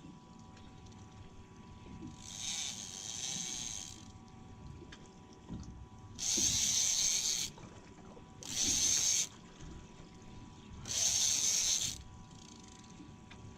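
Fishing reel whirring in four short spells of about a second each, with line running through it.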